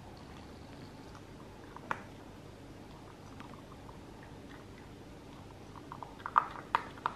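Shetland sheepdog puppy eating from a bowl: sparse crunching and small clicks, with a cluster of sharper, louder clicks near the end.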